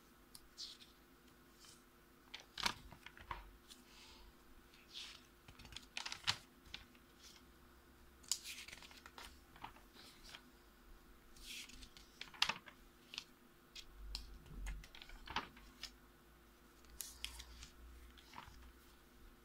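Paper notebook pages being handled and turned: scattered soft taps and rustles, with a few longer swishes of paper as pages are flipped.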